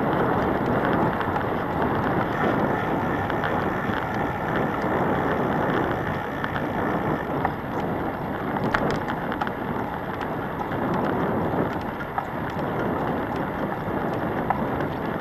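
Steady wind rush on the microphone and rolling rumble from a scooter riding along asphalt, with a few light clicks or rattles, most noticeably about nine seconds in.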